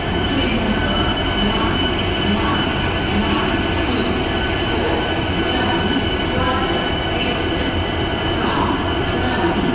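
Vande Bharat Express electric trainset rolling in along the platform as it arrives, a loud steady rumble of wheels on rails with a steady high squeal over it.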